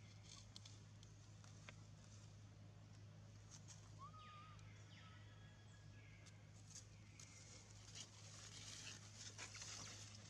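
Near silence: a faint steady low hum, with soft scattered crackles of dry leaves that grow a little near the end, and one brief faint chirp about four seconds in.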